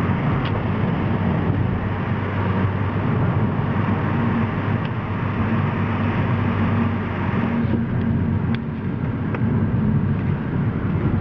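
Steady engine and tyre noise of a car heard from inside its cabin, driving on a wet road through a tunnel, with a few light ticks in the last few seconds.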